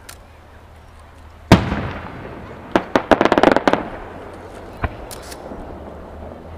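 Aerial fireworks: a single loud boom about a second and a half in, ringing out as it fades. About a second later comes a rapid string of sharp crackling pops, then one more pop near five seconds.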